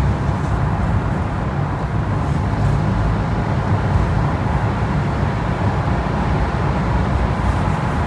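Steady road noise of a car driving through a long road tunnel, heard from inside the cabin: a low rumble of tyres and engine that holds level throughout.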